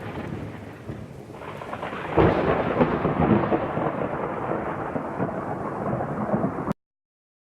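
Thunderstorm sound effect: rain and rolling thunder, with a sudden loud thunderclap about two seconds in, then cutting off abruptly near the end to complete silence.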